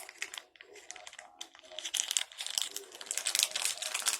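Rapid, irregular crackling clicks from hands handling something small, getting denser and louder about two seconds in.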